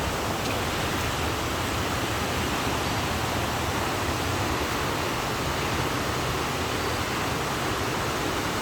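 Creek water rushing steadily, an even flowing noise without pauses.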